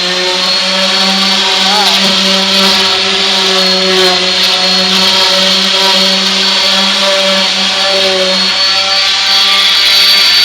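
Electric orbital sander running steadily at full speed, sanding down raised wood fibres: a constant hum with a high whine over it.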